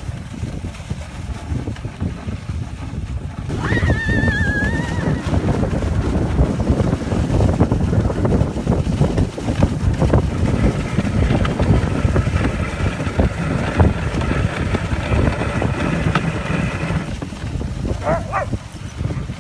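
Dog sled running over a packed snow trail behind a husky team: a steady scraping, rumbling hiss from the runners, with wind on the microphone. A brief wavering high cry comes about four seconds in.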